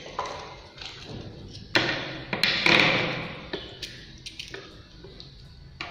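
A soldering iron's cable and plug being handled and connected to a rework station: light clicks and taps, with a louder scraping rustle about two to three seconds in.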